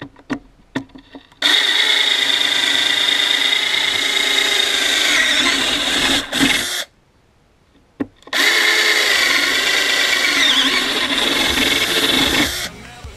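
Black & Decker EGBL108 cordless drill boring holes in a wooden plank with a large wood bit: a few clicks, then two runs of the drill's steady whine, each about four to five seconds long, separated by a short pause with a single click.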